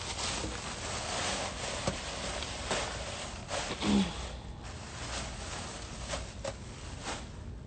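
Plastic food-service gloves and a plastic bag rustling and crinkling as seafood is handled, in a run of short uneven crinkles, with a brief low hum about four seconds in.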